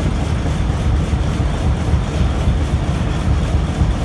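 Antique stationary engines running steadily, low-pitched with a quick, even beat.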